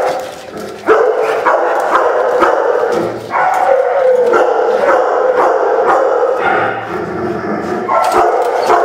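Dogs in a shelter kennel barking and yelping in a continuous, loud din, with fresh bursts about a second in and again near the end.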